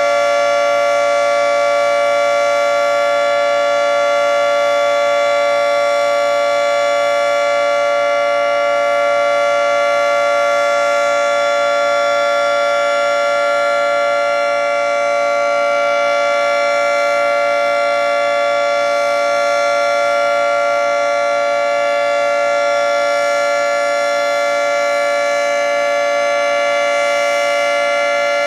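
Federal Signal 3T22 three-tone electromechanical outdoor warning siren sounding its steady full-alert signal. It holds a chord of several tones at constant pitch and loudness.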